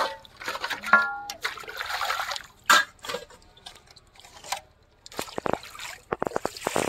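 Water splashing and trickling in irregular bursts, with a few sharp knocks among them.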